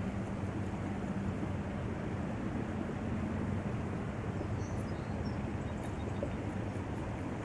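Steady outdoor rumble and hiss with a low droning hum running under it, and a few faint high chirps about five seconds in.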